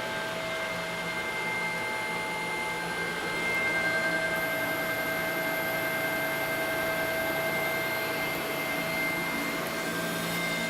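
Pillarhouse Jade selective soldering machine running: a steady motor hum and hiss with several constant high whining tones.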